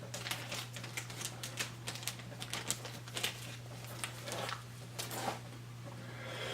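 Irregular small clicks and taps of rifle parts being handled while the magazine catch pin is fitted, over a steady low hum.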